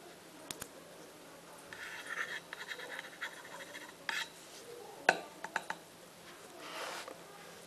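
Scratching and tapping by hand right on the plate of a Sound Grabber II boundary microphone: short stretches of scratchy rubbing and a few sharp taps, the loudest tap about five seconds in, followed by several lighter ones.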